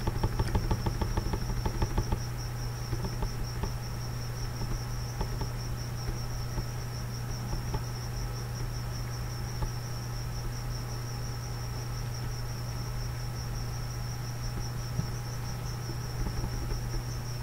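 Steady high-pitched insect trill over a low steady hum, with a quick run of clicks in the first two seconds.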